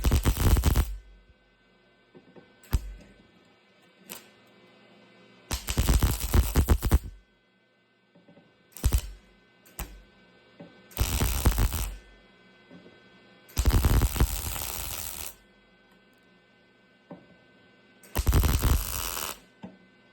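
Electric arc welder laying tack welds on sheet-metal body panel: about six separate bursts of arc crackle, from a fraction of a second to about two seconds each, with a steady hum in the pauses between them.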